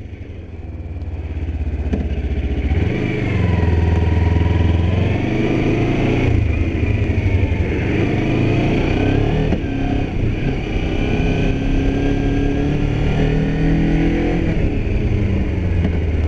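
2008 Kawasaki Ninja 250R's parallel-twin engine pulling away and accelerating. It gets louder over the first few seconds, then the revs climb and drop several times as it rides on.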